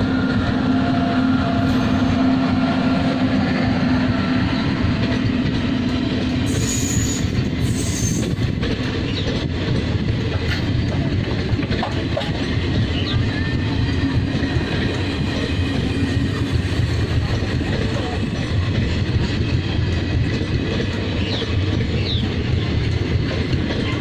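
Express train passing at speed behind a WAP-5 electric locomotive: a steady rumble of coach wheels on the rails with clickety-clack over the joints. A steady hum is heard for the first few seconds as the locomotive goes by, with a few brief squeals from the wheels around 7 seconds in.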